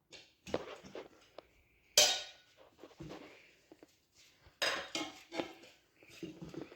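Tire irons clinking and knocking against a dirt bike wheel rim while levering a tire bead onto it: scattered metallic strikes, a sharp ringing one about two seconds in and a cluster of knocks near five seconds.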